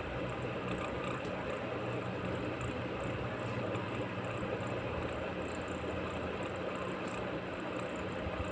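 Steady background noise: a low hum and hiss with a constant faint high-pitched whine over it.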